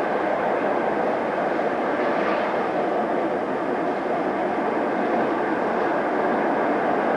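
Electric train running, a steady rumble of wheels on the track.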